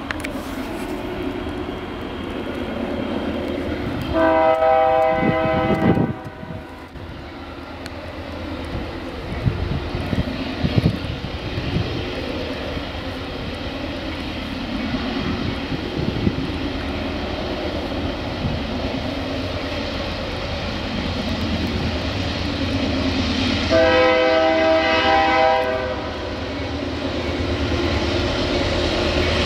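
Distant freight locomotive horn sounding two long chord blasts, about twenty seconds apart, as the train approaches a level crossing, over a steady low rumble.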